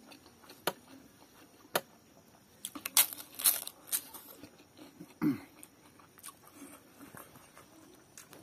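Crisp papad (papadum) being bitten and crunched, with chewing at close range. Single sharp crunches come about a second in and near two seconds, then a loud run of crunches around three to four seconds, then quieter chewing.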